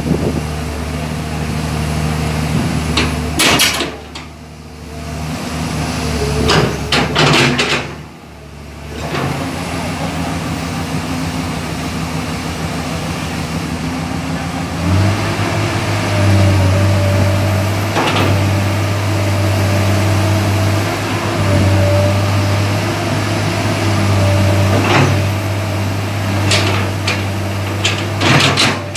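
Komatsu PC200 hydraulic excavator's diesel engine running while the boom, arm and bucket are worked. Its note steps up and gets louder about halfway through, as under hydraulic load. Sharp metallic knocks come now and then.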